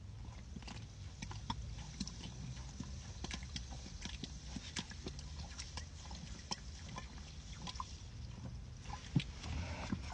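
A person gulping sparkling water in quick succession: a long run of small, irregular swallowing clicks, a few each second, with one louder click near the end.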